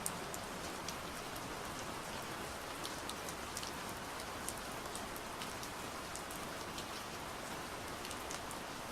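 Steady gentle rain falling on a surface, with scattered individual drops ticking.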